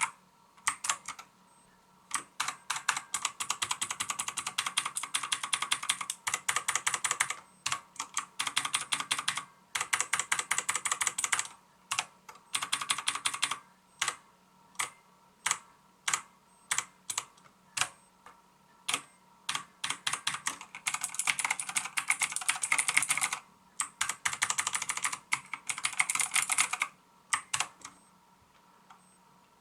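Typing on a MAXTILL TRON G100K mechanical keyboard with clicky blue switches: fast runs of keystrokes broken by short pauses. In the middle there is a stretch of slower single key presses, about two a second.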